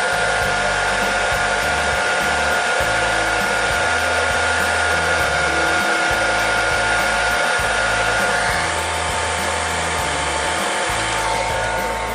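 Hair dryer blowing steadily with a whining hum, heating the double-sided tape on a phone screen to soften its adhesive. Part of the whine drops out about two-thirds of the way through, and the dryer switches off at the very end.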